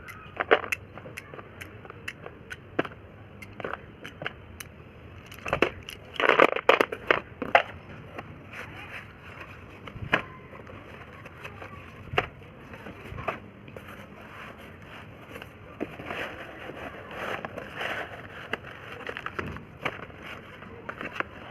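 Chand Tara slate pencils being crunched: sharp snaps and gritty crunching, densest about six seconds in and again from about sixteen to nineteen seconds.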